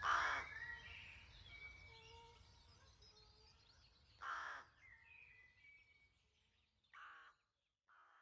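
Rooks cawing at a rookery: four harsh caws, the first the loudest and the last two fainter. Thin whistled bird song runs behind them in the first half.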